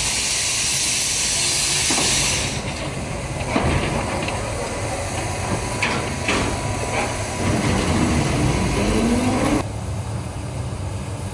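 Small steam tank locomotive venting steam with a loud, steady hiss that stops about two and a half seconds in. Lower mixed sound follows, with a few sharp knocks and a short rising tone, and the sound drops off suddenly near the end.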